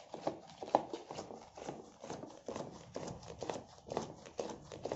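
A foam-backed scouring sponge squeezed and pumped over and over in a plastic bowl of dishwashing-liquid solution, squelching and sloshing about two to three times a second as it works up a lather.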